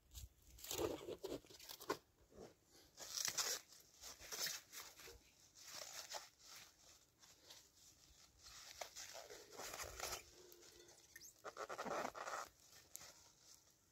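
Plastic stretch film crackling in short, irregular bursts as it is pulled off the roll and wrapped over a branch-frame dome, with footsteps crunching in snow.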